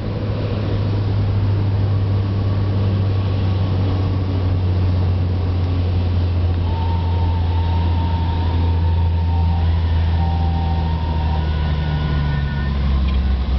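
Cessna 182G's six-cylinder engine and propeller droning steadily, heard from inside the cabin on final approach to land.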